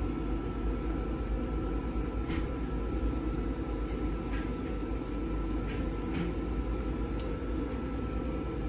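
Steady low rumble and hum inside a passenger train coach as the train pulls out of the station, with a faint constant whine above it. A few faint clicks come at irregular moments.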